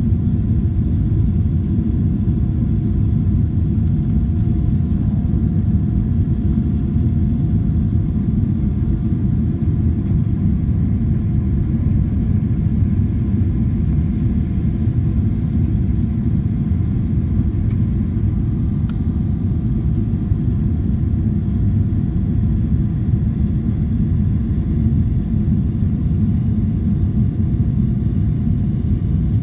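Cabin noise inside a Boeing 777-300ER airliner on approach: a steady low rumble of airflow and its GE90 engines, with a faint steady tone above it.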